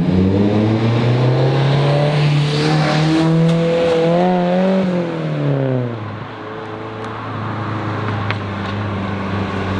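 Toyota AE86 Sprinter Trueno's 1.6-litre 4A-GE twin-cam four-cylinder engine pulling past, its pitch rising, holding, then falling away about five seconds in. A lower, quieter steady drone follows.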